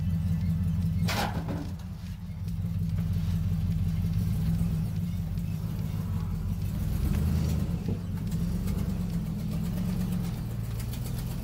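2002 GMC Yukon Denali's V8 engine running at low revs as the truck creeps up loading ramps, a steady low rumble that swells a little as it climbs.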